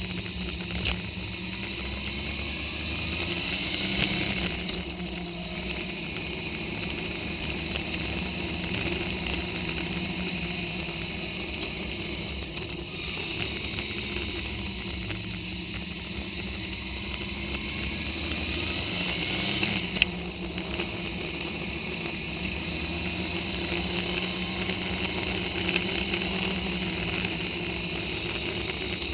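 Motorcycle engine running on the move, its note rising and falling with the throttle, over steady wind hiss. A single sharp click comes about two-thirds of the way through.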